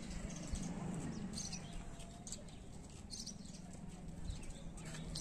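Outdoor ambience with small birds chirping in short bursts roughly every second, over a low steady background hum.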